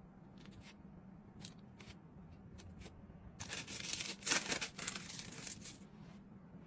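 Thin plastic film being peeled off an individually wrapped cheese slice: a crinkly tearing rustle starts about three and a half seconds in and lasts about two seconds. It is preceded by a few soft light taps.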